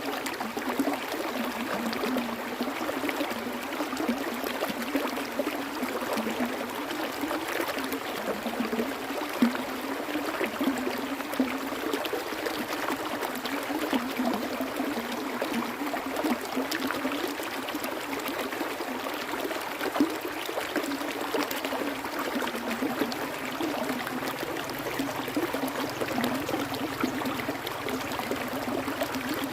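Flowing water running steadily, like a small stream, with many small splashes and trickles throughout.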